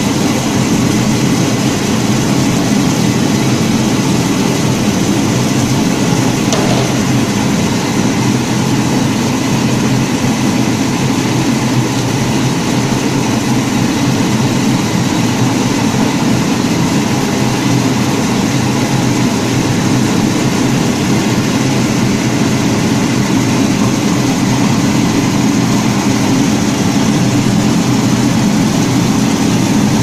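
MAXIA 220 kg brush-roller washing and peeling machine running, its nylon rollers turning a load of ginger roots under the water spray: a loud, steady machine hum with an even hiss over it.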